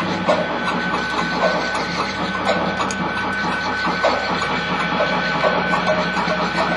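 Steady, dense mechanical-sounding drone with a held high whine, a low hum underneath and scattered clicks and crackles.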